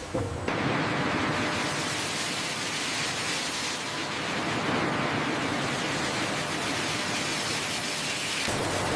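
Steady hiss-like factory machinery noise. It starts abruptly about half a second in and changes suddenly near the end.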